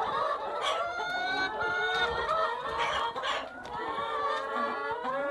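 Several laying hens in a coop clucking and making drawn-out, sliding calls that overlap one another.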